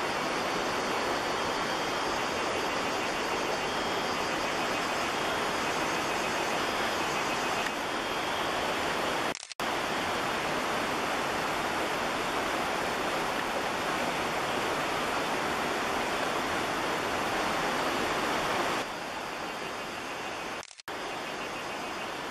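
Steady rushing of a stream, broken by two brief dropouts where the recording cuts, about nine and a half seconds in and again near the end.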